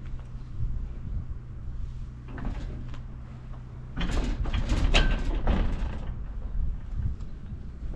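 Buell XB9S Lightning's air-cooled V-twin engine idling after a cold start, with a louder, rougher stretch about four seconds in lasting around two seconds; the engine runs without abnormal noises.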